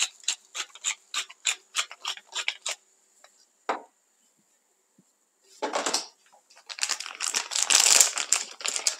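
Pepper grinder being twisted over the pan, its mechanism clicking about four times a second for the first three seconds or so. Near the end comes a denser run of crackling, rustling noise.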